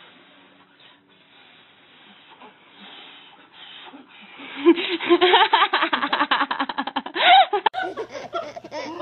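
Soft breathy blowing, then a baby laughing in a quick run of loud giggles from about four and a half seconds in. Near the end a second baby laughs.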